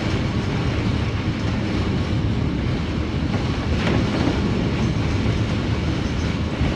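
Steady low rumble of a river cruise ship's engines, heard from inside the passenger cabin while the ship moves slowly away from the pier.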